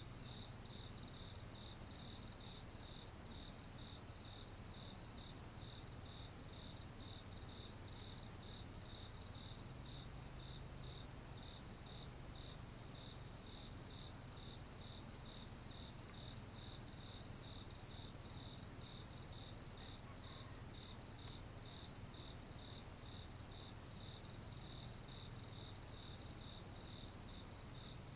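Insects chirping steadily at about two chirps a second, with spells of quicker, slightly higher chirping joining in several times.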